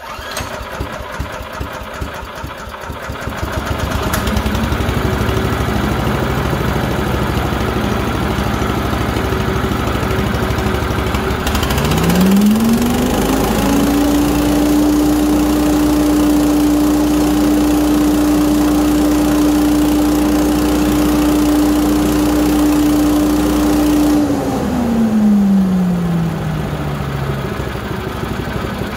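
The small single-cylinder gas engine of a DR Pilot 200 leaf vacuum is pull-started from cold on choke and catches on the first pull, then runs. About twelve seconds in it is throttled up: a whine climbs quickly to a steady high pitch and holds for about ten seconds, then slides back down as the engine is throttled back.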